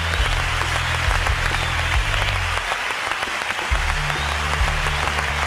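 Studio audience applauding at the end of a song, with low music underneath that drops out briefly about halfway through.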